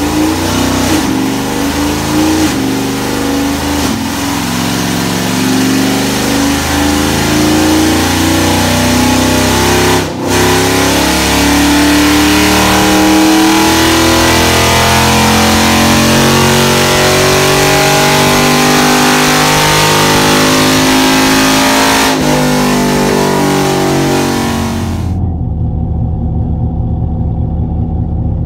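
Camaro SS V8 engine pulling hard through the gears, its pitch climbing and falling back at each shift, over and over. Near the end it gives way to a steadier, lower engine note.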